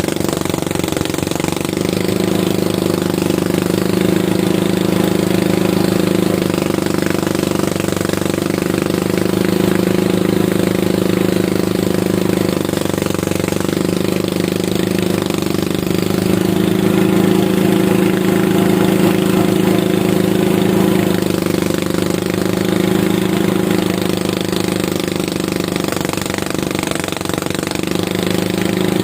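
Engine of a rice-harvesting machine running steadily under load, a rapid pulsing drone that swells a little and eases back at times.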